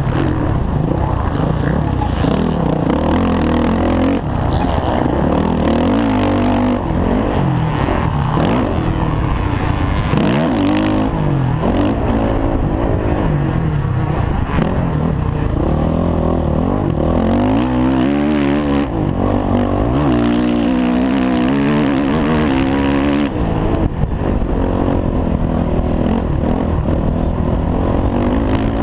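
Four-stroke dirt bike engine heard from onboard under racing load, its revs climbing and falling over and over as the rider accelerates, shifts up and rolls off the throttle.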